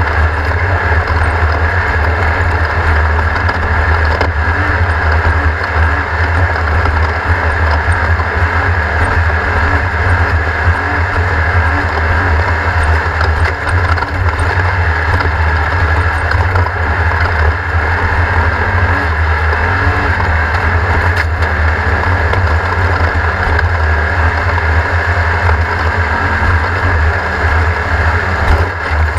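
Race car engine running loud and steady, with a heavy low rumble and no shifts or revs.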